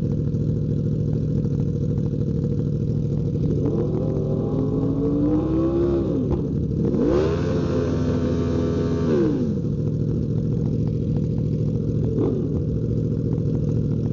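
Sport motorcycles idling side by side, their engines revved in succession: two long revs that rise and fall in pitch about four and seven seconds in, then a short blip near the end, over the steady idle.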